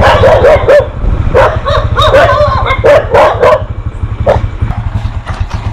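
A dog barking in quick runs of short barks, thinning out after about three and a half seconds. Underneath is the low, steady running of a motorcycle engine.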